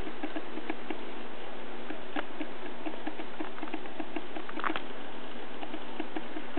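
N scale model freight train rolling along code 40 track: a rapid, even run of light clicks as the small wheels pass rail joints and switches, with one louder rattle about four and a half seconds in.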